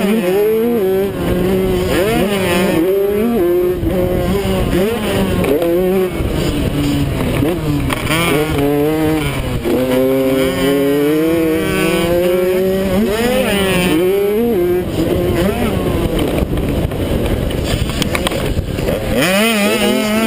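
Kawasaki KX85 two-stroke single-cylinder engine revving up and dropping back again and again under hard riding, its pitch rising and falling, with wind rushing over a helmet-mounted camera.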